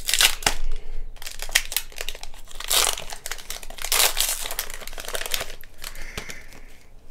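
Foil wrapper of a Pokémon trading-card booster pack crinkling and tearing as it is ripped open and the cards are pulled out, a dense crackle that dies away about five and a half seconds in.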